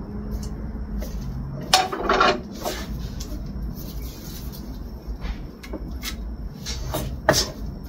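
Scattered knocks and clatter of kitchen prep: a knife striking a plastic cutting board as chives are chopped, and a plastic bowl set into a metal frying pan. The strokes come irregularly, a few at a time with pauses between, over a steady low hum.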